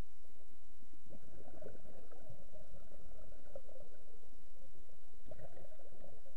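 Scuba diver's exhaled bubbles gurgling out of the regulator underwater: one long exhale, then a second one starting near the end, over a steady faint hum.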